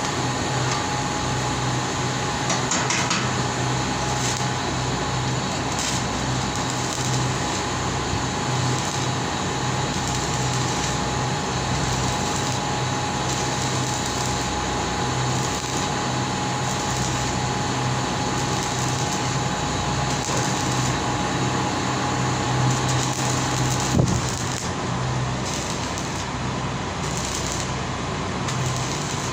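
Steady mechanical hum and whir of running equipment, with a thin steady whine over it that stops with a sharp click about 24 seconds in.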